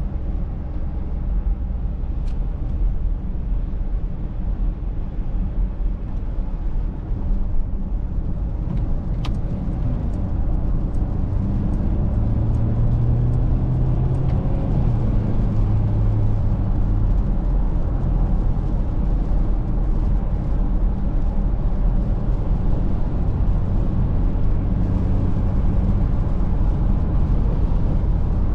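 A Mercedes-Benz GLC Coupé 300de plug-in hybrid driving, with a steady low road rumble. The rumble grows a little louder about a third of the way in, and a tone rises in pitch for a few seconds in the middle.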